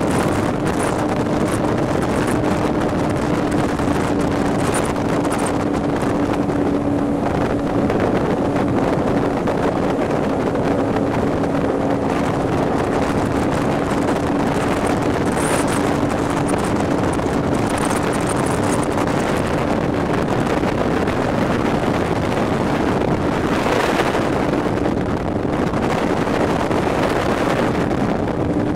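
The Raider 26 powerboat's 460 cubic-inch Ford big-block V8 running at a steady pitch, heard onboard over rushing water and wind buffeting the microphone.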